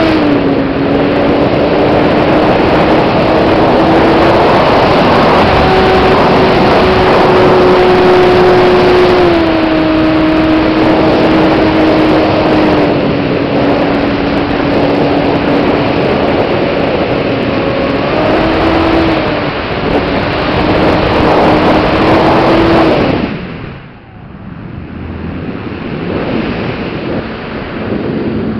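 Onboard sound of a radio-controlled Yak model aerobatic plane's motor and propeller at high power: a steady drone whose pitch steps up and down with the throttle, over rushing wind on the microphone. About four-fifths of the way through, the throttle is cut back sharply and the drone falls away, leaving mostly wind noise.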